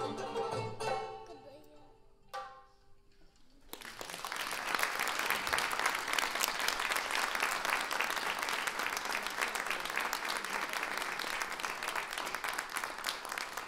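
Oud, rubob and hand-drum ensemble plays its closing plucked notes, which ring out and die away, with one last struck note about two seconds in. Then the audience breaks into steady applause.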